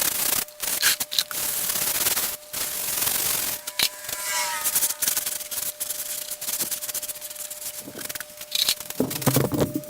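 Scrub brush scrubbing soapy water over the painted wooden outside of an old tool box, in repeated strokes with brief pauses between them.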